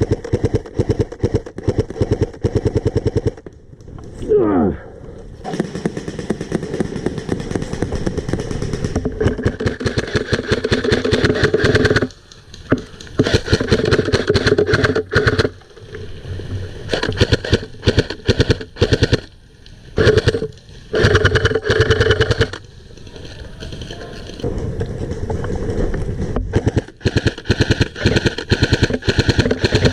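Electric airsoft rifle, an M4 replica, firing repeated rapid full-auto bursts, each run of shots lasting a few seconds with short pauses between them.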